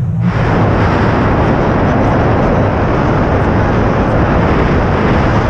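Steady, loud rush of wind buffeting the microphone of a pole-held camera during a tandem paraglider flight.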